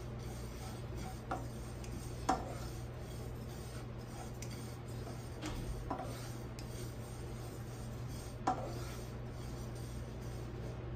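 A spatula stirring sesame seeds as they dry-toast in a nonstick skillet: a steady scraping rustle of seeds against the pan, with a few sharp taps of the spatula on the pan.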